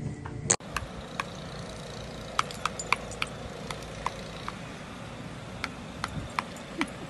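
Irregular light metallic clicks and ticks as a dog snaps at a metal garden wind spinner, over a steady low rumble.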